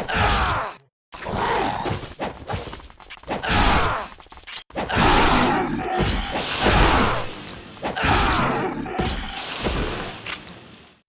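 Katana sword sound effects: a run of metallic hits and scrapes with ringing tails, about half a dozen strikes one after another, fading out near the end.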